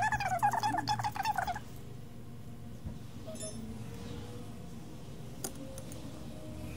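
An animal whining in high, wavering cries for about the first second and a half, then a low steady hum with one sharp click.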